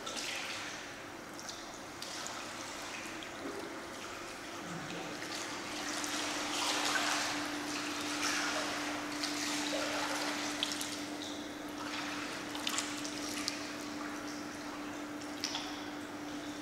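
Pool water splashing and lapping as a person swims, with small choppy splashes that are busiest in the middle. A steady low hum runs beneath from about a third of the way in.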